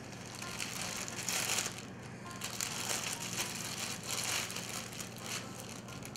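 A plastic bread bag crinkling as it is handled, in irregular bursts.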